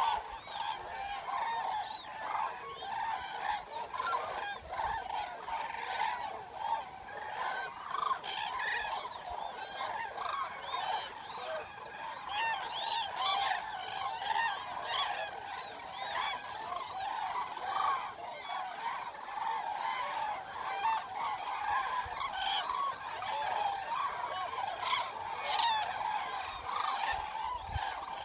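A flock of Eurasian cranes calling, many trumpeting calls overlapping one another without a break.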